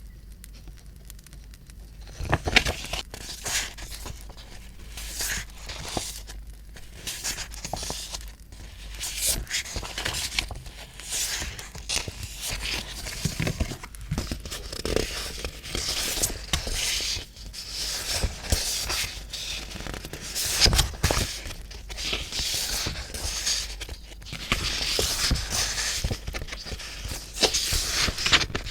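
Paper being worked by hand for scrapbooking: tearing, crinkling and rustling in irregular bursts, starting about two seconds in.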